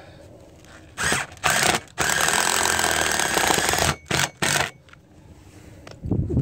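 Cordless power driver driving a lag bolt through a satellite dish roof mount: two short bursts, a run of about two seconds, then two more quick bursts.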